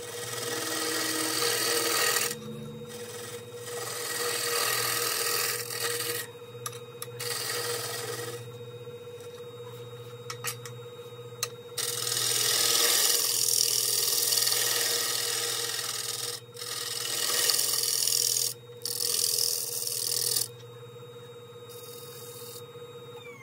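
Wood lathe spinning an ash bowl while a turning tool scrapes the inside bottom in about six rasping passes of one to four seconds each, with short pauses between them. Under the passes runs the steady hum of the lathe motor, which begins to wind down near the end.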